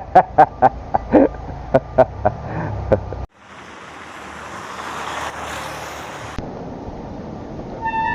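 A run of short, evenly spaced, loud pitched bursts, about three a second, for the first three seconds. After a sudden cut comes steady wind and road rush on an action camera's microphone while cycling, then a quieter rush after a second cut.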